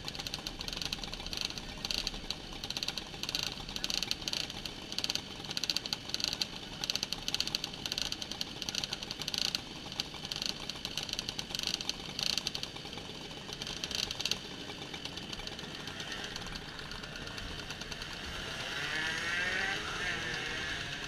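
A crowd of moped engines running at idle in a queue, a steady buzzing clatter. In the last few seconds a nearby engine revs up and down.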